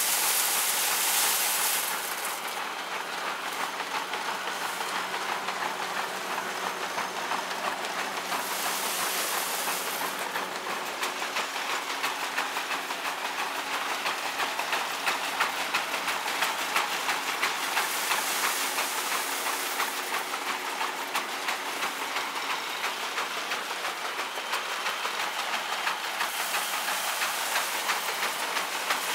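Old belt-driven threshing machine running under load, its drum rattling and clattering steadily as it threshes straw fed in by hand. A rushing hiss swells four times, about every eight to nine seconds, as bundles go through the drum.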